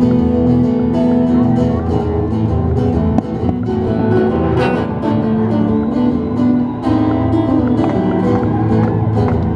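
Live rock concert music led by guitar, with a steady bass underneath, recorded from the crowd with poor, muddy sound that the uploader calls horrible.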